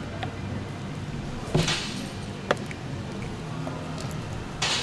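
Faint background music, with a few handling noises over it: a short scrape about a second and a half in, a sharp click a second later, and another scrape near the end.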